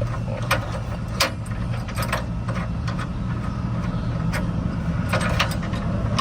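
Scattered metal clicks and taps from handling the threaded spring-perch nuts and hardware on a car's rear suspension, over a steady low hum.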